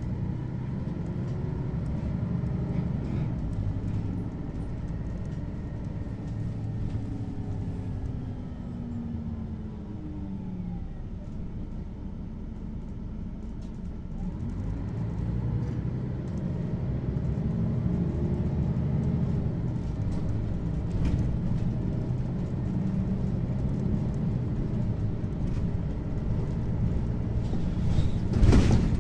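Articulated Mercedes-Benz Citaro city bus heard from inside the cabin while driving: the diesel engine note falls and the level dips around the middle, then the note climbs again as the bus picks up speed. A sharp clatter near the end.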